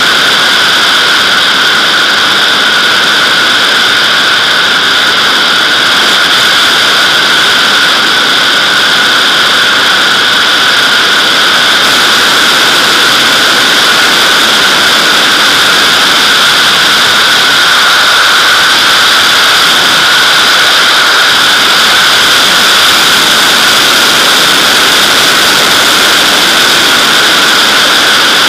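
Steady, loud rush of airflow over a camera mounted on the fuselage of a Nimbus-2 sailplane in gliding flight, a constant hiss with a high, whistling edge.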